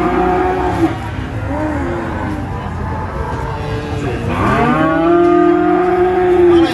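Young calf mooing: a call trailing off about a second in, a short weaker one after it, then a long call that rises in pitch about four seconds in and holds steady for over two seconds before stopping abruptly.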